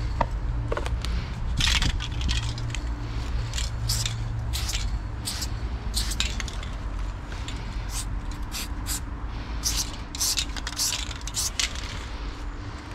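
Loop Colors spray paint can hissing in many short, irregular bursts as letters are painted onto a stone wall, over a low steady rumble.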